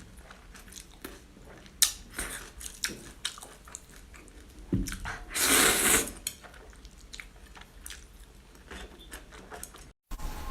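Close-miked eating: a person chewing and crunching food in many short crisp bites, with one louder, longer noisy burst a little past halfway.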